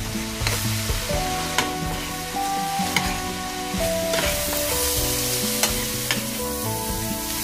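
Ground beef, sausage and pepperoni sizzling in a hot frying pan as they are stirred, with a metal spoon clicking and scraping against the pan several times.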